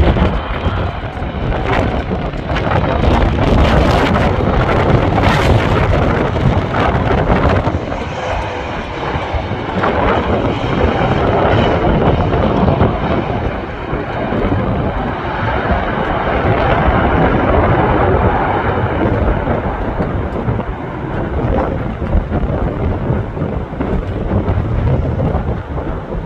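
Strong wind buffeting the microphone in gusts, swelling and easing every few seconds, over the jet noise of a Boeing 777-300ER's engines.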